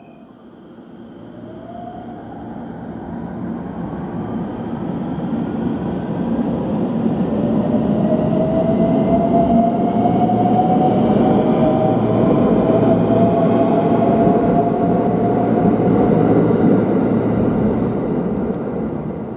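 JR 521 series electric multiple unit running along the platform past the listener: wheels on rail making a heavy rumble that builds over the first several seconds, is loudest through the middle and eases off near the end, with a faint motor whine rising slowly in pitch.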